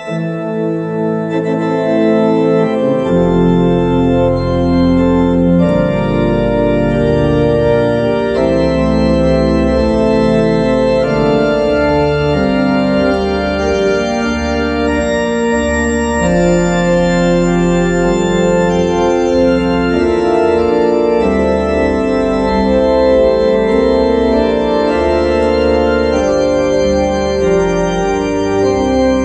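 Two-manual church organ played in sustained full chords that shift every second or two. Deep pedal bass notes come in about three seconds in and carry on beneath the chords.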